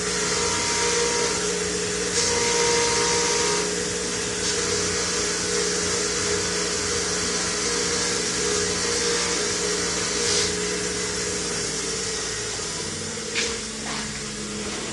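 Bench-grinder motor spinning a wire brush wheel while brake caliper slider pins are held against it to clean them, making a steady motor hum under a scratchy hiss with brighter rasping spells. The motor hum fades out near the end.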